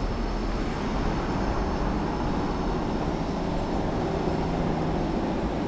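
Steady street noise: a constant low rumble and hiss with no distinct events.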